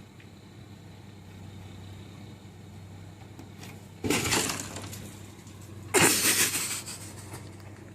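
Two sudden crashes about two seconds apart, the second louder, over a steady low hum.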